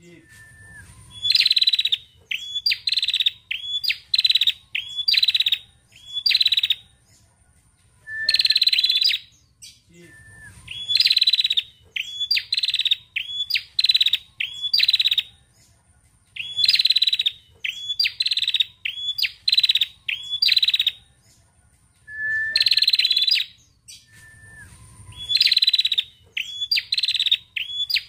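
Caged female tailorbird (prenjak) calling in repeated bouts, each a run of quick, sharp high chirps opened by a lower note, with short pauses between bouts.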